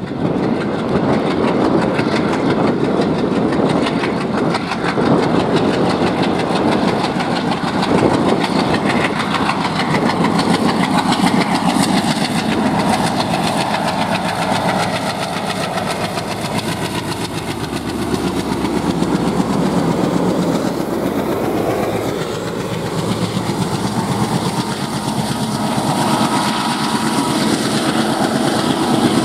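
Two ALCO diesel locomotives, a WDM-3A and a WDM-3D, working in multiple at the head of a freight train: their 16-cylinder ALCO 251 engines chug under heavy load as they are notched up and accelerate. They pass close by about halfway through, and the freight wagons then roll past.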